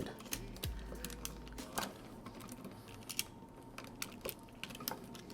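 Faint, irregular small clicks and taps of a screwdriver and wire being worked at a terminal screw on a light switch, as a wire is fastened under it.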